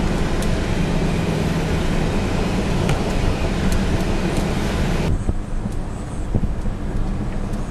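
Vehicle driving on an unpaved track, heard from the cabin: steady engine and tyre noise. About five seconds in the sound changes abruptly, the hiss dropping away and leaving a low rumble with wind buffeting the microphone.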